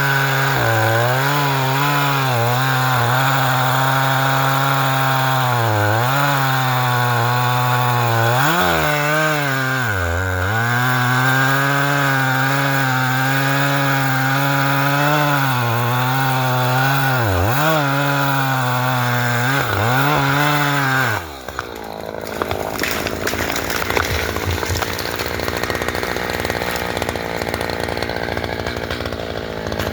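Two-stroke chainsaw running at full throttle while cutting into a hemlock, its engine note dipping sharply again and again as it bogs in the cut. About two-thirds of the way through, the engine note stops and gives way to a quieter, noisy stretch with sharp cracks.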